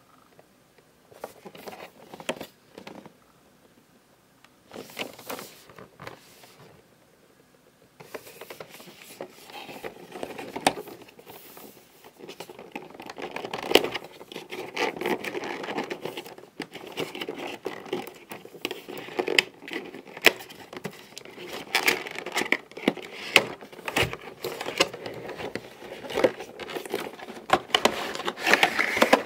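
Unboxing headphones: cardboard and plastic packaging being handled, rustling and crinkling with scrapes and sharp clicks. It comes in short bursts at first, then runs almost without pause from about a third of the way in.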